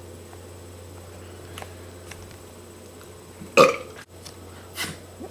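A man burping loudly once, about three and a half seconds in, with a shorter, fainter sound about a second later.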